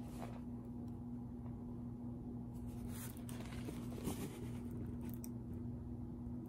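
Faint rustling and crinkling of a diamond painting canvas's plastic protective film as it is handled, a few soft crinkles about three and four seconds in, over a steady low hum.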